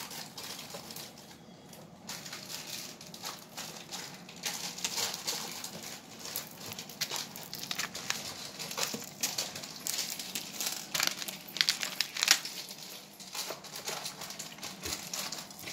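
Clear plastic packets crinkling and rustling in irregular crackles as jewellery pieces are handled among them.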